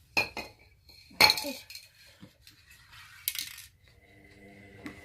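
Clinks and knocks of small hard objects being handled and set down, the loudest about a second in with a brief metallic ring, and a short hiss about three seconds in.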